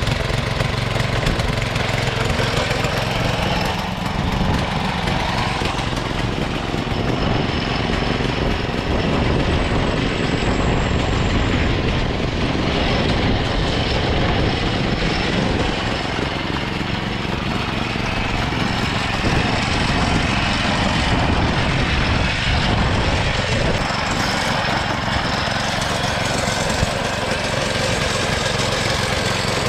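Small engine of a homemade race mower built on a Stiga ride-on mower chassis, running steadily at a fairly even speed throughout.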